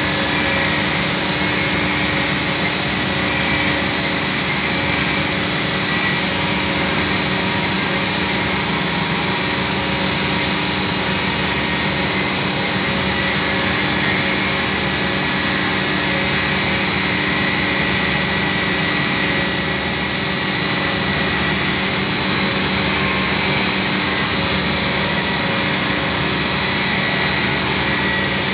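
Steady drone of running machine-shop machinery around a CNC machining centre: an unchanging hum with several fixed whining tones, all even in level, with no cutting or other sudden sounds.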